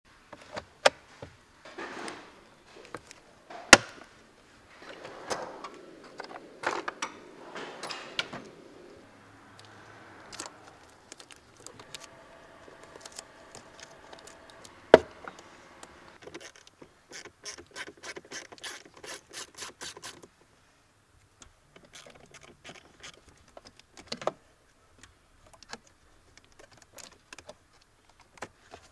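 Plastic dashboard trim and glovebox of a 2022 Chevy Equinox being handled and unclipped by hand: rubbing and scraping of plastic with scattered sharp snaps, the loudest about four seconds in and again midway, and a quick run of small clicks a few seconds later.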